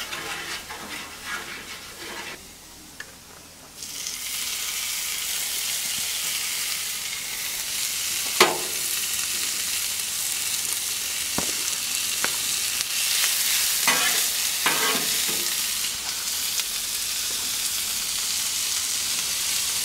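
Carne asada sizzling on a hot Blackstone steel griddle. The sizzle starts suddenly about four seconds in and stays loud, with a few sharp scrapes of a metal spatula on the griddle top.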